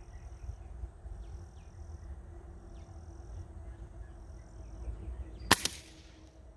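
A single shot from a Gamo Wildcat Whisper .177 break-barrel pellet rifle: one sharp crack about five and a half seconds in, with a brief ringing tail.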